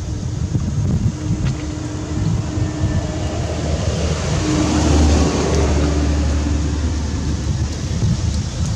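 Wind buffeting the microphone with a low rumble, and a passing motor vehicle's engine hum that swells in the middle and fades near the end.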